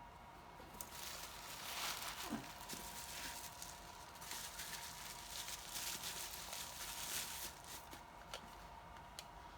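Rustling and crinkling of packing material and small knocks as items are handled and lifted out of a box, for most of the stretch, fading off near the end. A faint steady whine sits underneath.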